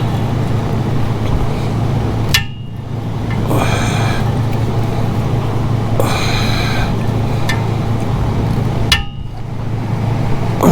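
A steel spring hook clinking against the exhaust's tension springs in a few sharp metallic clicks while the springs are pulled by hand, between heavy breaths of effort, over a steady low hum.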